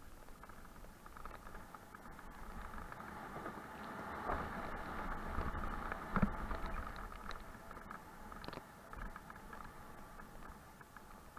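Mountain bike descending a dirt and stony singletrack, heard from a mounted action camera: tyres rumbling over the ground with a constant muffled rattle of the bike. It gets louder over the rocky stretch in the middle, with one hard knock about six seconds in.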